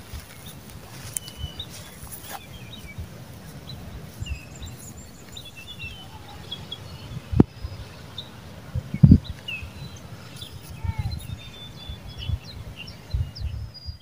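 Small birds chirping and calling on and off over irregular wind rumble on the microphone, with two sharp knocks about seven and nine seconds in.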